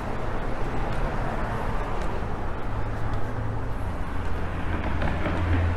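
Outdoor city street ambience: steady traffic noise with a vehicle engine's low hum, strongest near the end.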